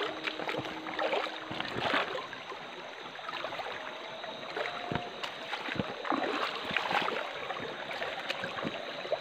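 Shallow stream water splashing and sloshing irregularly as a hand net is swept and scooped through it among the stones.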